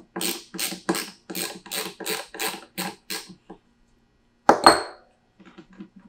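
Ratchet with a 10 mm socket clicking back and forth in quick even strokes, about three a second, unthreading the nut on top of a dropper seatpost. About four and a half seconds in comes one sharp, ringing metallic clink.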